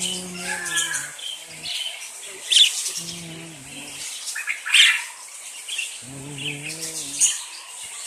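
Small parrots chirping and twittering continually, with three louder sharp calls: about two and a half seconds in, near the middle, and shortly before the end.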